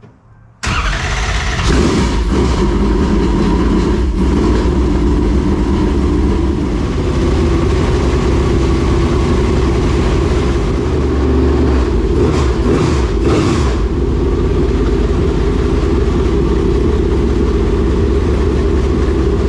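Dirt late model race car's V8 engine, fitted with a brand new four-barrel carburetor, catching and starting about half a second in, then running steadily and loudly. This is the first run on the new carburetor, and it sounds good.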